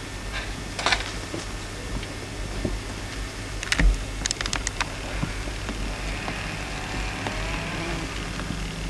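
Scattered sharp clicks over a steady low hum, with a cluster of several clicks about four seconds in.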